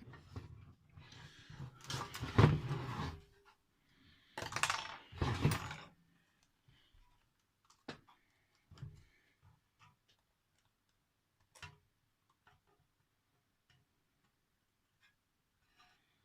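Two stretches of loud rustling handling noise in the first six seconds. Then scattered small clicks and taps of tweezers on plastic, spaced a second or more apart, as a ribbon cable is worked into its connector inside a car stereo head unit.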